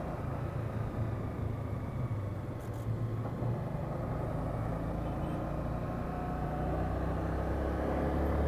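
Motorcycle engine running steadily while riding along a street, getting a little louder near the end.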